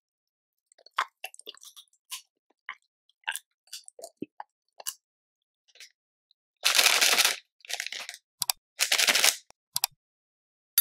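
Dry toasted bread being bitten and chewed in short, scattered crunches. About two-thirds of the way in come several loud crinkles of a plastic snack wrapper being handled.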